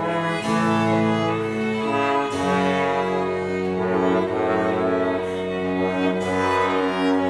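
Early-17th-century instrumental sonata played live by a period ensemble of two baroque violins, sackbut, baroque bassoon, viola da gamba and harpsichord, several lines moving together.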